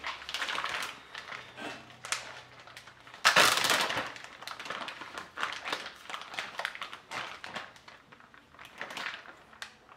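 Plastic zipper-seal bag crinkling and rustling as it is handled and pulled open, with a loud crinkle about three seconds in.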